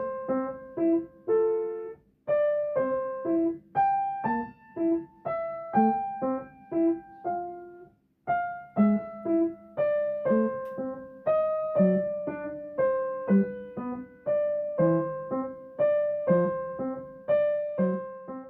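Background piano music: a light melody of separate, decaying notes in a repeating pattern, breaking off briefly about eight seconds in.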